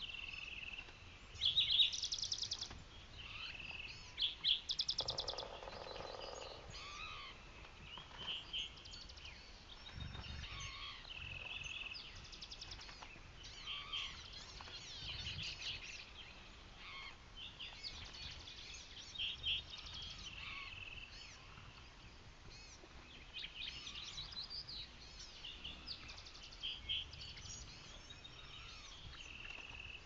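Several wild songbirds singing and calling at once, short chirps and phrases overlapping throughout, with two loud rapid trills in the first five seconds.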